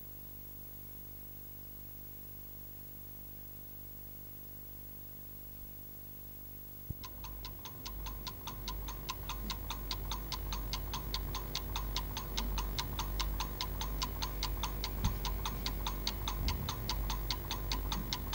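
A faint steady hum, then about seven seconds in a mechanical clock starts ticking, fast and even at about four to five ticks a second, over a low rumble.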